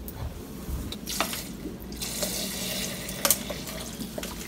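Clear liquid slime activator being poured from a plastic squeeze bottle into a plastic bowl of glue mixture, a steady trickle of liquid, with a few light clicks.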